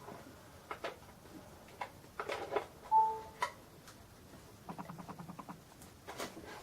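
Small clicks and taps from handling an iPhone and its charging cable, with a short electronic beep about three seconds in and a brief rapid rattle near five seconds.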